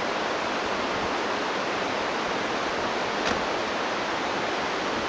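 Steady rushing of a mountain river, an even hiss of fast water. One short click a little over three seconds in.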